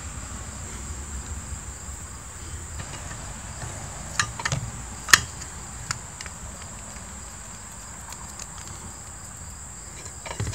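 Insects buzzing steadily at a high pitch, with a few sharp plastic clicks about four to five seconds in as a red plastic burger press is handled.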